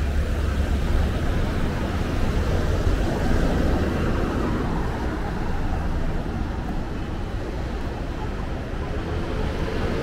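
City street ambience: a steady wash of traffic noise with a heavy low rumble.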